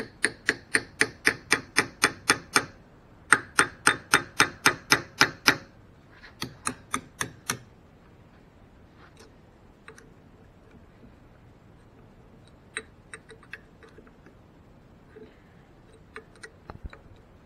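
Hammer blows on a steel punch set against the inner rotor of a seized oil pump clamped in a vise: sharp metallic strikes about three to four a second, in three runs with short pauses between them, the last run lighter, then a few scattered light taps. The pump is locked up tight and does not turn.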